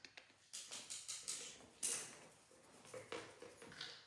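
Light scuffling and rustling of a puppy and a small monkey wrestling on a tiled floor, a string of short scrapes and taps, the sharpest just under two seconds in.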